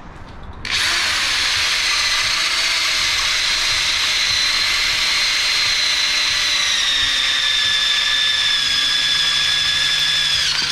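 Corded electric drill boring a hole through a metal awning bracket. The motor starts about a second in and runs with a steady whine whose pitch sinks slowly as it cuts, then stops suddenly at the end.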